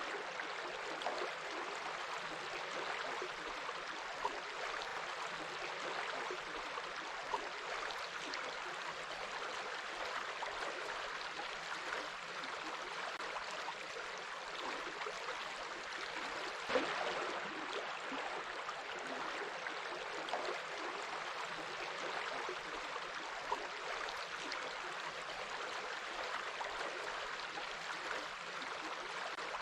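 Water of a small stream running and gurgling steadily, with a few sharper splashes, the loudest about seventeen seconds in.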